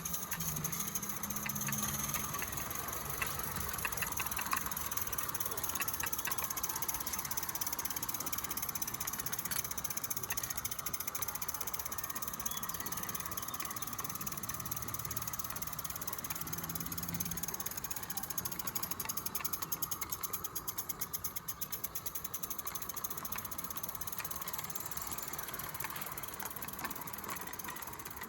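Accucraft Cranmore Peckett 16mm-scale live steam model locomotive running on its track: steam hiss with a rapid, steady ticking beat of exhaust and wheels, growing louder and softer as the engine comes near and goes away.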